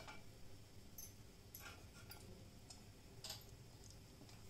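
Near silence, with a few faint, scattered ticks around a steel slotted spoon and a small piece frying in a kadai of hot oil.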